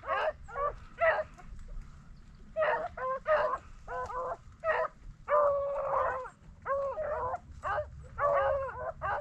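Pack of rabbit-hunting dogs baying on the chase while running a rabbit's track. There is a steady run of short barks, with several longer drawn-out bawls in the second half.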